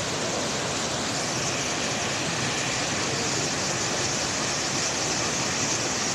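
Mountain stream cascading over boulders: a steady rush of white water.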